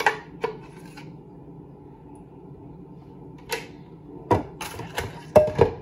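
Metal spoon tapping and scraping against the inside of a plastic blender jar while scooping out crepe batter. There are two sharp clicks at the start, a quiet stretch, then a quick run of about half a dozen knocks in the last two seconds.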